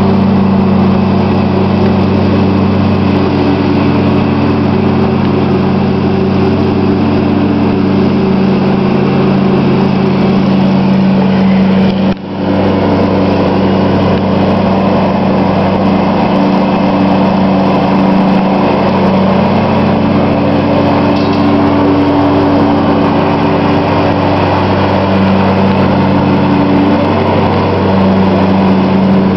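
John Deere riding lawn tractor running steadily as it is driven across a lawn, with one brief break in the sound about twelve seconds in.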